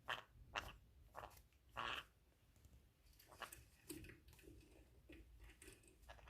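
Green-cheeked conure chewing and tearing at a cloth pocket with its beak: faint short scratchy rips in the first two seconds, then lighter nibbling clicks and crackles.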